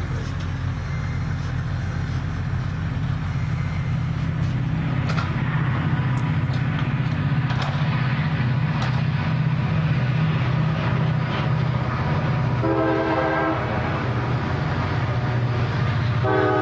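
Backhoe engine running steadily, with scattered clanks. About 13 s in, and again near the end, a loud horn-like tone sounds for about a second.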